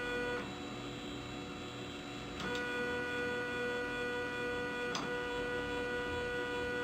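RepRap 3D printer's stepper motors whining steadily as the axes home and zero. The whine drops away about half a second in and comes back with a click about two and a half seconds in. Another click comes near five seconds.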